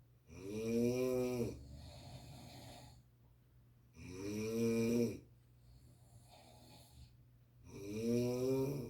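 A sleeping person snoring: three long, pitched snores about every four seconds, each followed by a quieter breath.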